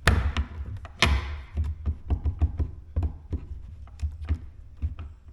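Pliers gripping an old, broken Blum concealed cabinet hinge and working it back and forth to pry it out of its hole in the cabinet door: a run of clicks and knocks, the two loudest at the start and about a second in, then lighter ones.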